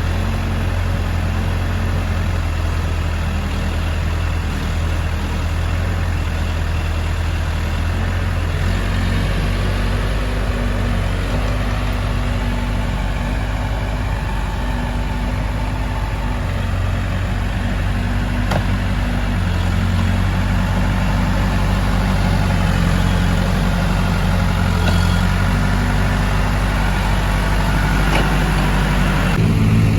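Heavy diesel engine running steadily, its note changing about eight seconds in and rising near the end.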